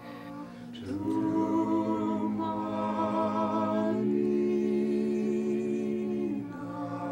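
Small a cappella chorus of several voices holding long notes in close harmony. The voices come in about a second in, move to a new chord about four seconds in, and fade near the end.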